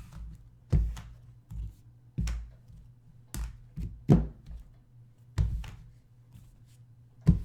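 A series of irregular light thunks and taps on a desk, about nine of them, with the sharpest just before the end, over a faint steady low hum.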